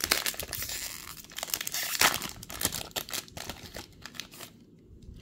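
Foil wrapper of a Topps baseball card pack being torn open and crinkled by hand, a dense crackling that is loudest about two seconds in and stops at about four and a half seconds.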